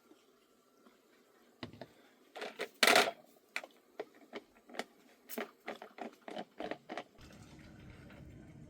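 Irregular light knocks and clicks, about two a second, with one louder scrape about three seconds in; near the end a steady low rumble comes in.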